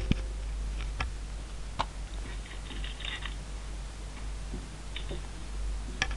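Scattered clicks of a computer mouse and keyboard: a few single sharp clicks about a second apart, with a short run of faint rapid clicking about two and a half seconds in, over a steady low electrical hum.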